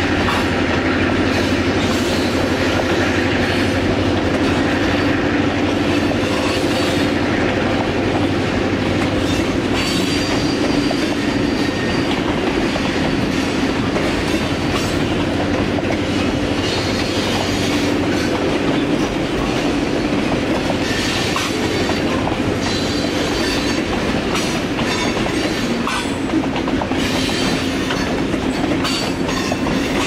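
Freight train cars, boxcars and covered hoppers, rolling past steadily on steel wheels, with a faint high wheel squeal coming and going now and then.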